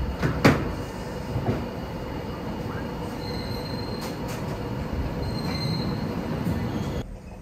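Railway station train noise: a steady low rumble with two brief high wheel squeals near the middle and a sharp knock about half a second in. The rumble stops abruptly near the end.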